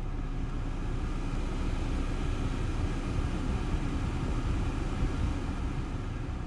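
Mahindra XUV300's air-conditioning blower fan running at full speed, a steady rush of air through the vents, heard inside the car's cabin.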